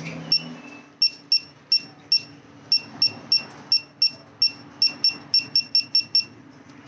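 Keypad of a handheld digital torque tool beeping as its buttons are pressed: about seventeen short, high beeps at uneven spacing, coming faster toward the end, over a steady low hum.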